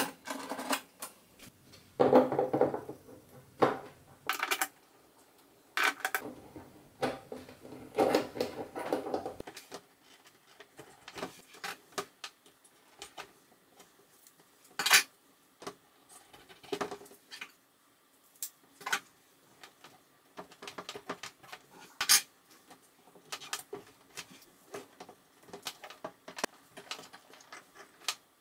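Hands working on a plastic electrical enclosure and its cables: a string of small clicks, taps and rustles, busiest and loudest in the first ten seconds, then scattered sharper clicks.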